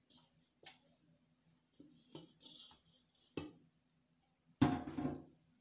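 Hands handling a ball of soft biscuit dough in a stainless steel mixing bowl and lifting it out onto the counter: light scrapes and knocks against the bowl, with a louder thump near the end.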